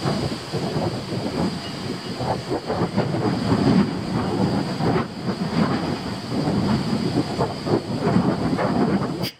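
Wind buffeting the camera's microphone: an irregular, gusting rumble. It cuts off abruptly near the end.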